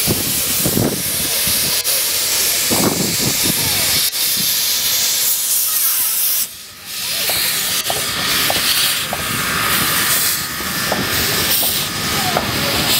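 Narrow-gauge steam locomotive hissing loudly, steam blowing out around its cylinders as it moves off; the hiss cuts out briefly about six and a half seconds in, then resumes.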